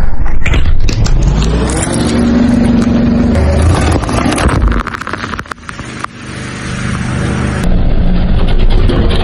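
A car tyre rolling over and squashing a plastic toy ball, then a row of soda cans bursting under the tyre with a burst of cracking and crunching, over the sound of the car.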